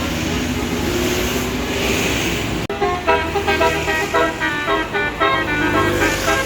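Steady road traffic noise, then, after a sudden cut about a third of the way in, a bus's basuri telolet horn playing a fast melody of short notes that step up and down, several a second.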